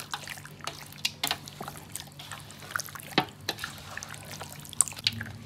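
Raw chicken pieces being mixed through a wet spice marinade in a metal bowl: irregular wet squelches and sticky clicks.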